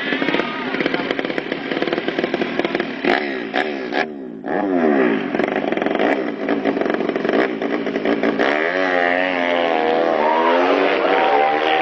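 200cc drag bike engine being revved during a tune-up. The throttle is blipped repeatedly so the pitch sweeps up and down, with a brief dip about four seconds in.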